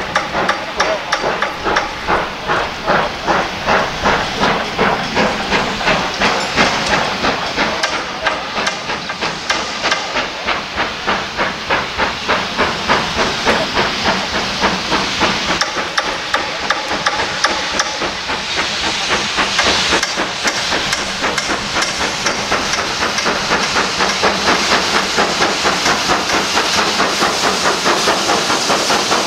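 GWR Castle Class 4-6-0 steam locomotive 4079 Pendennis Castle working toward the listener under power, with regular exhaust chuffs and hissing steam.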